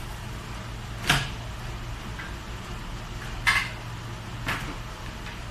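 Three sharp knocks of hard objects being handled: one about a second in, the loudest past halfway, and a weaker one a second after that. A steady low hum runs underneath.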